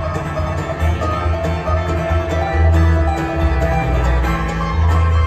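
Live bluegrass band playing: banjo picking and fiddle over a steady plucked upright-bass line, with mandolin.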